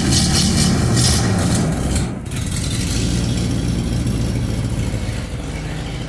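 A 1977 Chevrolet Corvette's 350 small-block V8 runs on a cold start. It is loud and revving for about the first two seconds, then drops just after and settles into a steadier, lower run.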